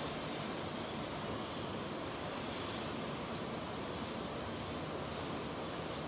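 Steady, even rushing noise with no calls or distinct sounds in it.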